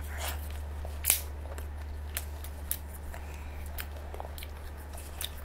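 Close-up eating sounds of grilled shellfish: chewing, with scattered small clicks and crackles from the shell being handled and picked at, one sharper click about a second in, over a faint steady hum.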